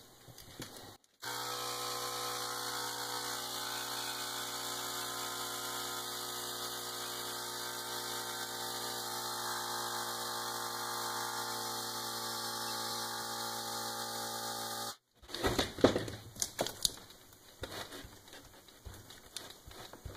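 Air compressor running steadily, inflating a riding-mower tire's inner tube through a hose and chuck on the valve stem; it stops abruptly about fifteen seconds in. After it come irregular clicks and knocks of hands working the chuck and the wheel.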